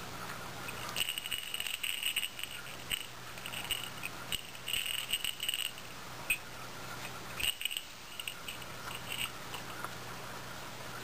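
Small metal bell on a cat's fluffy toy jingling in short, irregular bursts as a cat kicks and bats it. A faint steady hum lies underneath.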